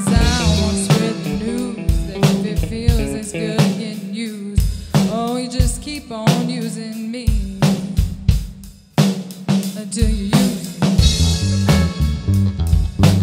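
Live band playing an instrumental passage on drum kit and electric guitars. The music thins out to a brief lull about nine seconds in, then the drums come back in.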